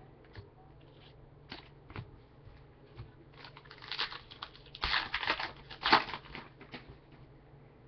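A few light taps of cards being handled, then the wrapper of a Panini Contenders basketball card pack being torn open and crinkled, densest about four to six seconds in.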